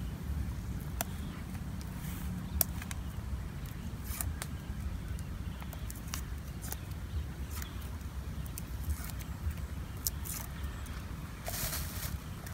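Garlic cloves being peeled by hand and dropped into a clay mortar: scattered small clicks and crackles over a steady low rumble. A plastic bag rustles near the end.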